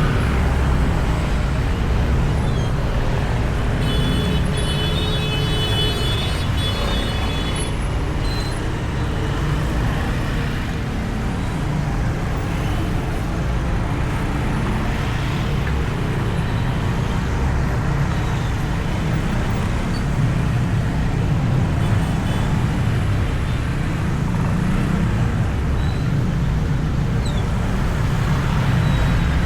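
Motorcycle ride through traffic heard from a microphone inside the rider's helmet: steady, loud wind and road rumble over the engine. About four seconds in, a high-pitched squeal sounds over it for roughly four seconds.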